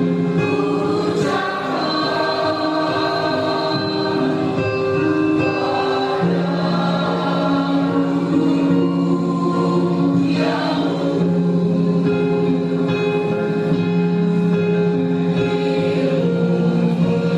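School choir singing together in several parts, holding long sustained notes.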